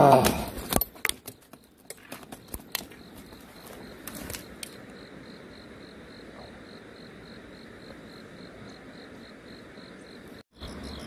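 A loud brief sound at the very start, then scattered clicks and knocks for a few seconds, then a steady outdoor background with insects chirping in a regular pulse, about three chirps a second.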